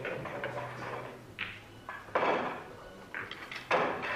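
Pool balls knocking together in several sharp clacks, a second or so apart.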